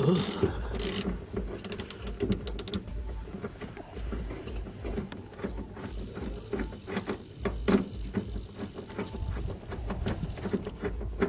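Ratchet wrench with a size 50 Torx socket backing out a car's seat-belt anchor bolt, with a quick run of ratchet clicks about two seconds in. After that, scattered clicks and knocks of the loose bolt and seat-belt anchor hardware being handled.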